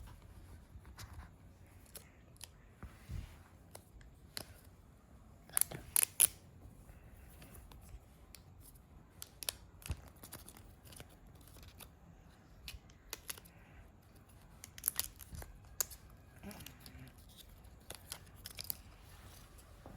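Paper and cardboard packaging of an AirPods Pro box being opened and handled by hand: scattered short rips, scrapes and clicks, with the loudest cluster about six seconds in.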